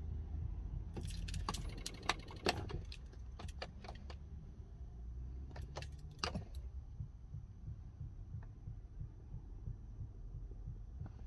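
Car keys jangling and clicking in a series of irregular sharp clicks for a few seconds, over a steady low rumble. No cranking or engine follows: the Hyundai Santa Fe won't start, its battery flat.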